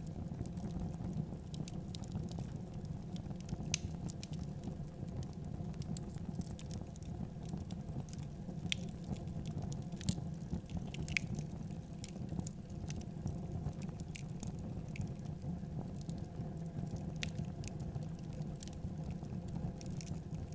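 Rice grains being stirred with a wooden stick in a hot pot over a wood fire: scattered small clicks and ticks at irregular times over a steady low rumble.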